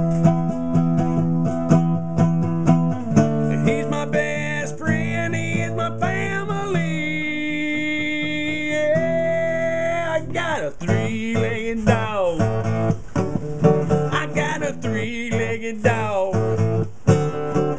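Acoustic guitar strummed in a steady country-style rhythm, with a melody line over it that holds one long note in the middle before moving on.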